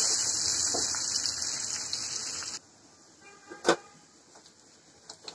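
Chopped garlic and dried red chillies sizzling hard in hot oil in an aluminium karai, stirred with a spatula: a loud steady hiss of the garlic and chilli tempering for dal. It cuts off abruptly about two and a half seconds in, leaving a quiet background with one brief sharp clink or knock that rings for a moment.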